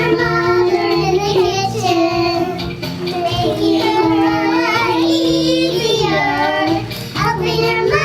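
Music: a child's voice singing a melody with long held notes over instrumental accompaniment with a steady bass line.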